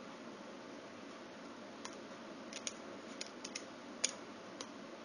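About eight small, sharp plastic clicks from about two seconds in: the ChargeCard's flexible micro USB connector being worked out of its slot in the card and snapped back into place.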